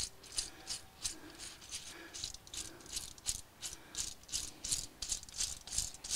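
Wheeleez balloon-tire wheel bearing in its plastic hub housing, turned back and forth by hand after cleaning in diesel, giving a steady run of light rattling clicks at about three a second. The rattle is a sign of a little play in the bearing, with no sand grit heard.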